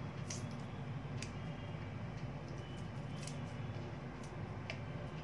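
A few faint, sharp clicks, a second or two apart, as walnuts are cracked into small pieces by hand over a glass bowl. A steady low hum runs underneath.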